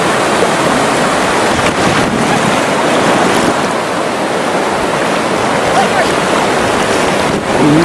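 Ocean surf breaking and washing through the shallows: a steady, loud rushing hiss.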